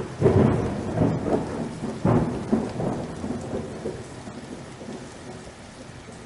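Thunderstorm: thunderclaps just after the start, about a second in and about two seconds in, each rolling off over steady rain, the storm slowly fading toward the end.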